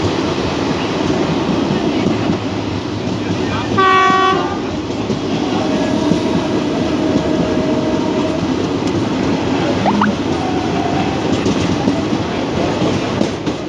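Indian passenger train running at speed, heard from aboard: a steady rolling rumble and clatter of wheels on the track. About four seconds in, the hauling WDM3A diesel locomotive sounds one short horn blast.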